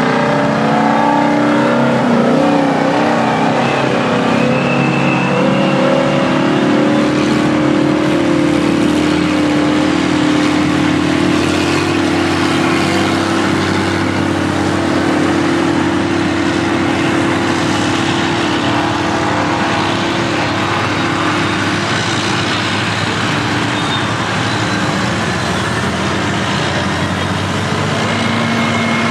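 Big diesel engines of classic off-highway dump trucks and earthmoving machines working together. An engine's pitch climbs in the first few seconds as a truck pulls through, then settles into a steady, loud drone of several machines running at once.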